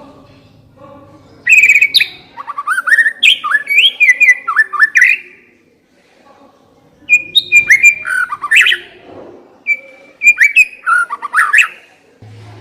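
White-rumped shama singing: two bursts of loud, varied whistled phrases with quick sweeping notes and sharp clicks, separated by a pause of about two seconds.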